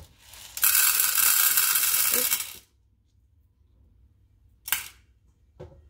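Dried popcorn kernels poured from a bowl into a hot-air popcorn maker's chamber: a dense rattle of hard kernels lasting about two seconds, then a single short click near the end.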